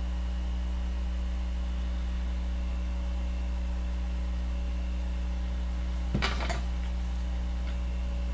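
Steady electrical mains hum, a low drone with evenly spaced overtones, and a brief faint noise about six seconds in.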